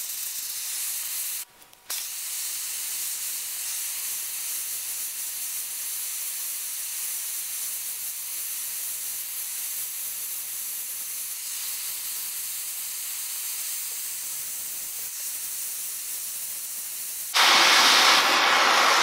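Handheld gas torch flame hissing steadily as it heats a stainless dirt bike silencer's end cap to colour it. It drops out briefly about a second and a half in. Near the end the sound jumps louder and fuller.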